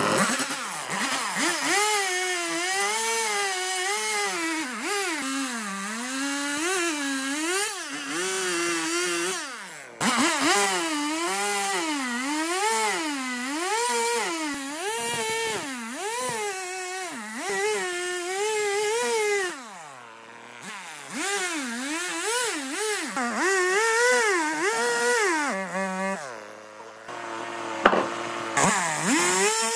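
Stihl two-stroke chainsaw cutting into a tree stump, its engine pitch sagging and recovering about once a second as the bar is worked through the wood. The engine drops back briefly about a third of the way in, again around two-thirds, and once more near the end.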